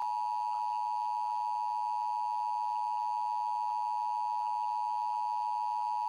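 Emergency Alert System attention signal: the steady two-tone alert (853 Hz and 960 Hz sounded together) broadcast during a Required Monthly Test.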